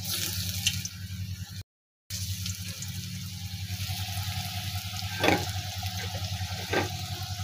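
Lentil-paste fritters (bora) sizzling in hot mustard oil in a steel kadai, a steady hiss. Two short knocks come in the second half, about a second and a half apart, and the sound drops out for a moment about two seconds in.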